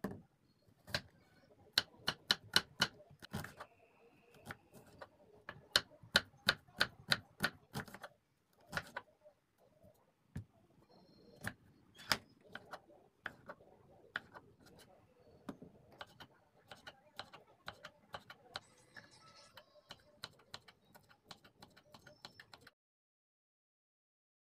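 Kitchen knife chopping onion and tomato on a wooden chopping board: sharp knife strikes on the wood, single and in quick runs of several a second.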